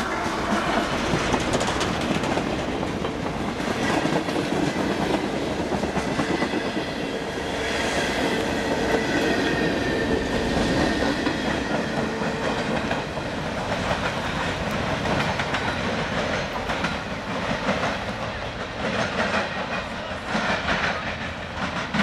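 CSX freight train passing close by: a locomotive, then a string of boxcars and covered hopper cars, the wheels on the rails making a steady, continuous noise that eases a little toward the end.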